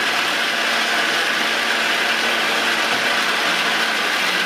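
Electric blower forcing air into a blacksmith's forge fire: a steady rushing noise with a faint low motor hum underneath.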